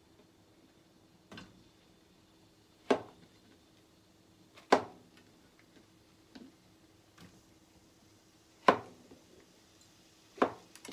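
Kitchen knife cutting shiitake mushrooms on a cutting board: sharp knocks of the blade against the board every second or two, four loud ones and a few fainter ones in between.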